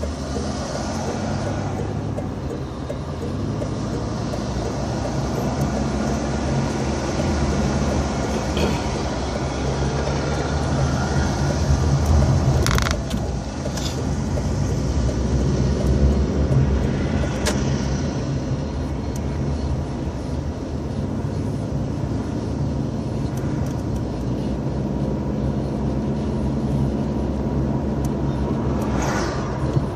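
Steady engine hum and road noise of a moving car, heard from inside its cabin, with a few brief clicks midway.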